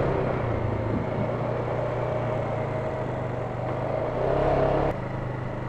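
ATV engine running as it drives the trail, the throttle easing off, picking up briefly about four seconds in, then dropping back suddenly a little before five seconds in.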